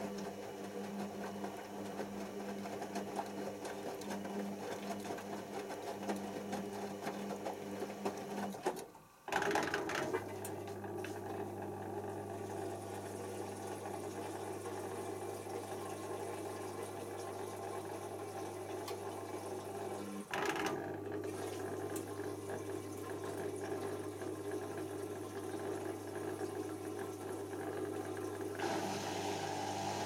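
Hoover Optima OPH714D washing machine's drum motor turning the load of towels with a steady hum as the final spin begins. It cuts out briefly twice, about nine and twenty seconds in, then picks up again, and grows louder near the end.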